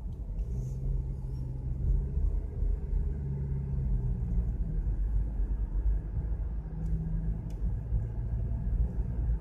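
A car's road rumble and engine hum, heard from inside the cabin while driving: a steady low rumble with a faint hum that drifts in pitch.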